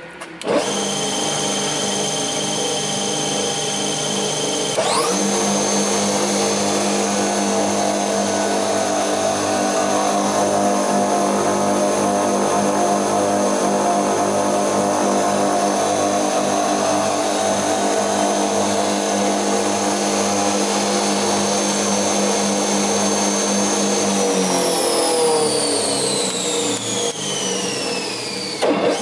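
Pagonu PP 101 spindle moulder running: its motor and spindle start up, step up in pitch about five seconds in, run with a steady whine, then wind down with a falling pitch over the last few seconds.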